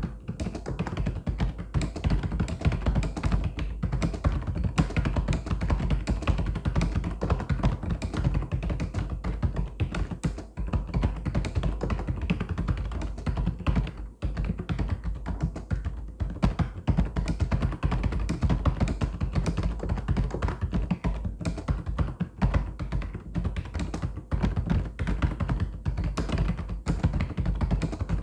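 Mechanical keyboard being typed on steadily: a dense, continuous stream of key clicks and clacks, with a couple of brief pauses.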